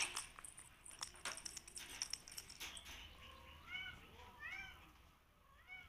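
A kitten mewing faintly: three short, high mews that rise and fall, in the second half, after a scatter of light clicks and taps.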